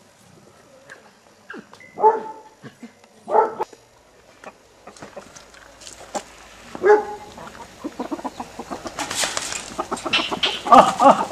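Chickens calling: three separate calls spread over the first seven seconds, then a busier, louder run of calls mixed with rustling noise near the end.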